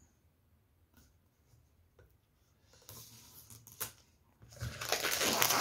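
Plastic shrink-wrap being cut and torn off a gimbal's retail box. A few faint taps at first, then crinkling begins about three seconds in and turns into loud tearing and crinkling near the end.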